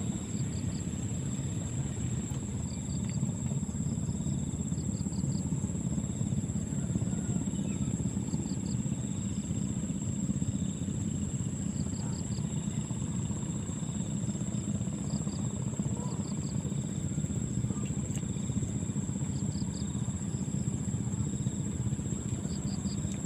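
Steady low rumble throughout, with an insect chirping in short trains of three or four quick pulses every second or two over a thin, steady high whine.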